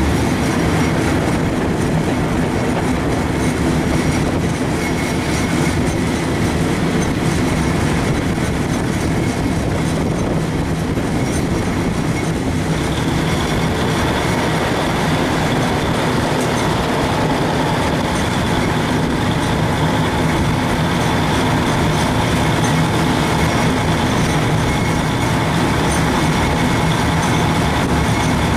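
Steady running noise of a moving vehicle, with a thin whine that comes in about halfway through.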